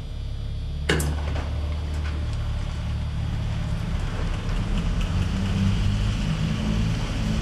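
Deep, steady bass drone from bare loudspeaker drivers wired to a small amplifier board, with one sharp click about a second in.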